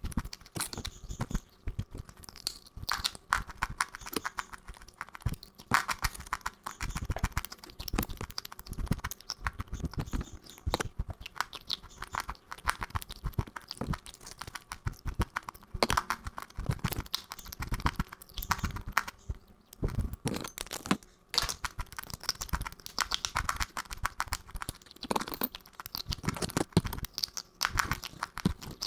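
Rapid, irregular crunching and crackling, close to the microphone, with low thuds among the crisp crunches.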